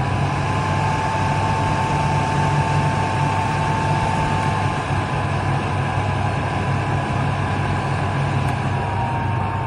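Arctic Air Ice Jet evaporative cooler fan running steadily: a rush of blown air with a low motor hum and a thin, steady whine from the spinning blades that wavers slightly in pitch about halfway through and again near the end.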